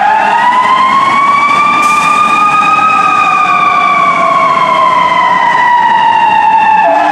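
Fire pumper truck's siren wailing: one slow cycle, the pitch climbing for about three seconds and then sliding slowly back down.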